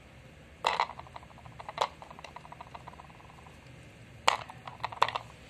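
Onion pieces dropped into the clear plastic bowl of a pull-cord vegetable chopper, knocking against the bowl and its steel blades: a knock with a short rattle about a second in, another shortly after, and a few more near the end.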